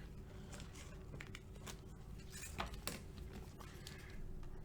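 Faint handling noise of trading cards: soft rustles and light clicks, with a couple of sharper ticks around the middle, over a faint steady room hum.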